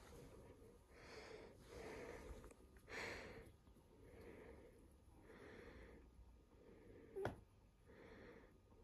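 Near silence with soft breathy puffs, roughly one a second, and a single sharp click about seven seconds in.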